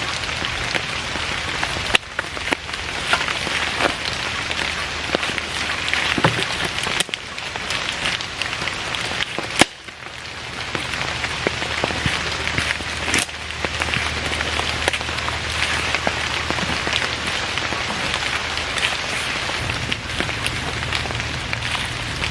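Heavy rain falling steadily, with many individual drops ticking. Two short sharp knocks cut through it, about two seconds and about ten seconds in.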